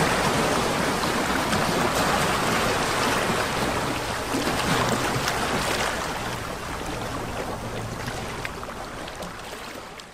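Small waves lapping and splashing against shoreline rocks, with a steady rush of choppy water; the sound fades away near the end.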